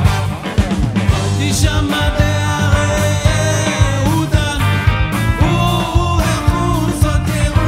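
A live band plays rock-style Jewish music with a steady beat: electric guitar over keyboard, bass guitar and drums.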